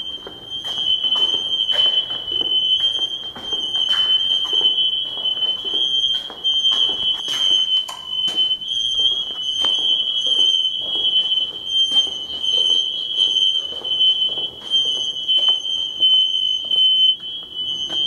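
Several interconnected Kidde/Firex smoke alarms sounding at once, their shrill beeps merging into an unbroken, slightly wavering high tone. The units are set off by a false alarm, not a fire.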